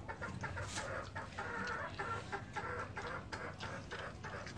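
Chickens clucking, mixed with a string of short crisp clicks from a dog crunching dry kibble off a concrete floor.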